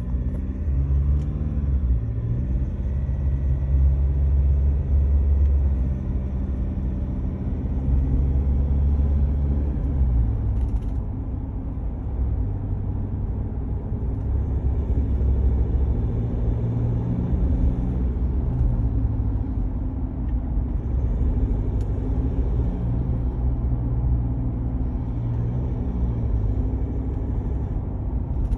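2019 Ford Ranger Wildtrak with a 2.0-litre bi-turbo diesel, driving: a steady low rumble of engine and big tyres, with humming tones that shift in pitch now and then.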